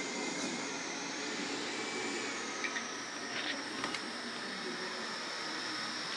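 Robot vacuum cleaner running: a steady whirring hiss with a high whine that drifts slightly lower in pitch, and a few light clicks about three to four seconds in.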